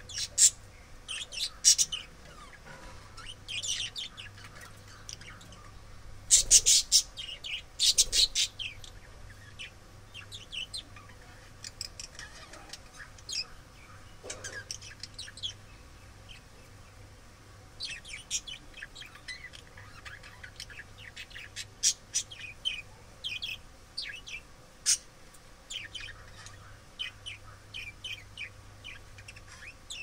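Budgerigars chirping and chattering in quick runs of short, sharp, high chirps, with the loudest bursts near the start and about six to eight seconds in.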